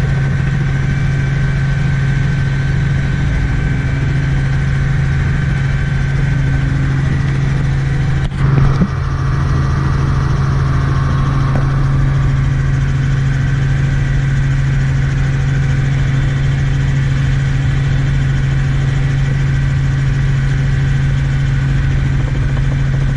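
Light helicopter's engine and rotors running, heard from inside the cabin: a loud, steady low drone. A brief thump comes about eight seconds in.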